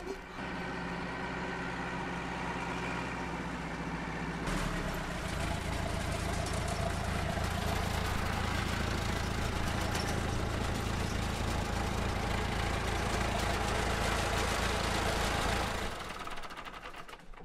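Diesel farm tractor engine running as the tractor and its trailer drive up. It grows louder about four seconds in, then drops away near the end.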